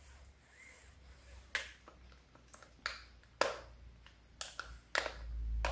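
Pink Flexi retractable dog leash being worked by hand: a string of sharp plastic clicks from its lock and reel mechanism, about seven spread over a few seconds, with low handling noise near the end.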